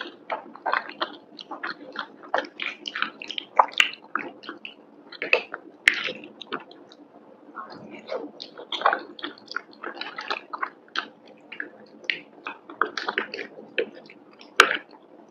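Close-miked chewing of creamy penne pasta: a dense run of short, irregular mouth clicks and smacks. Two sharper, louder clicks stand out, one about halfway through and one near the end.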